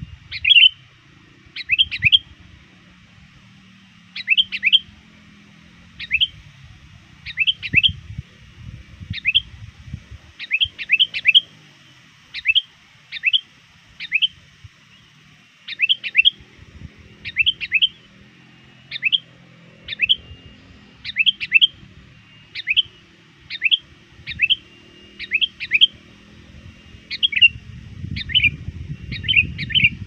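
Sooty-headed bulbul (kutilang) calling without pause to challenge rivals: short, sharp chirps in ones, twos and threes, about one cluster a second.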